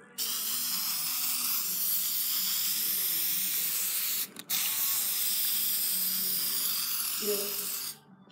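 Paint being sprayed: a loud, steady hiss in two long bursts, broken off briefly about four seconds in.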